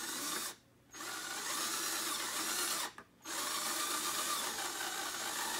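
Cordless drill driving a football helmet face-mask screw into its T-nut, the motor running in three stretches with two short pauses, about half a second in and about three seconds in.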